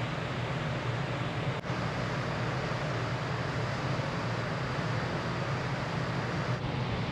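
The ferry Sunflower Murasaki under way, heard from its open deck: a steady low engine drone under a wash of wind and water noise.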